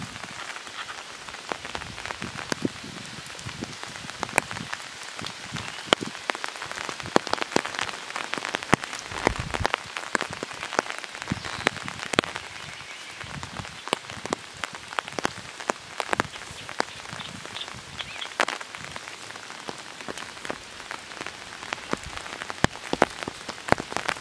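Light rain falling: a steady hiss with many sharp, irregular drop impacts close by.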